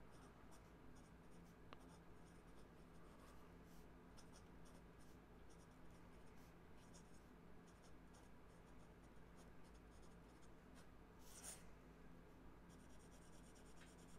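Faint scratching of a Platinum 3776 fountain pen with a music nib writing on heavy, slightly textured notebook paper: a string of short pen strokes, then rapid back-and-forth scribbling near the end.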